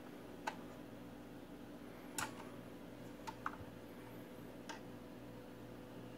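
A handful of sharp, light clicks from the Dual 1219 turntable's controls and changer mechanism as they are worked, over a steady low hum.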